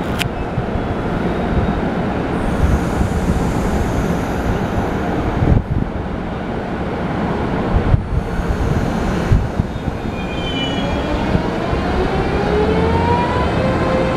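Taiwan Railway EMU500-series electric multiple unit pulling away from a station: a steady rumble with a few knocks, and from about ten seconds in a whine from its traction motors rising in pitch in several tones as it picks up speed.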